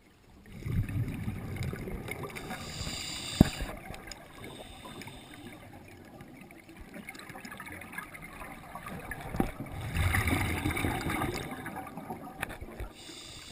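Scuba diver's exhaled air bubbling and gurgling out of the regulator, heard underwater in two swells of about three seconds each, one near the start and one about ten seconds in. There is a single sharp click a little over three seconds in.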